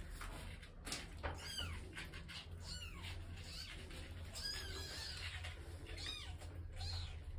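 Newborn kittens mewing while the mother cat licks them: a string of short, high-pitched cries that rise and fall, about one a second.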